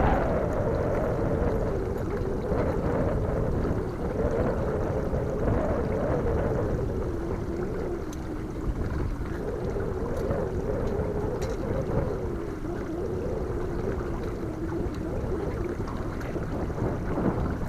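Pontoon boat's motor running at trolling speed, a steady hum whose pitch wavers slowly up and down, over a low rumble of wind.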